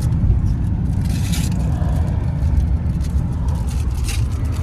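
Road noise inside a moving car's cabin: a steady low rumble of engine and tyres, with two brief hissing swells, about a second in and near the end.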